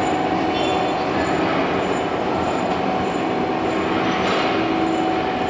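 Horizontal boring and milling machine running and machining metal: a steady mechanical noise with a couple of steady whining tones held throughout.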